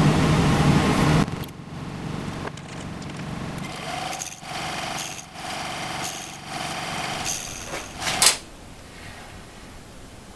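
Small metal lathe running and facing a brass round-stock blank, with a steady whining tone during the cut from about four to seven and a half seconds in. A louder steady hum fills the first second, a short sharp noise comes about eight seconds in, and the sound then drops to a lower level.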